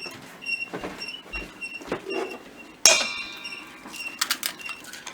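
A kitchen utensil clinking and knocking against a mixing bowl while cookie ingredients are worked together. One sharp strike about three seconds in rings on briefly.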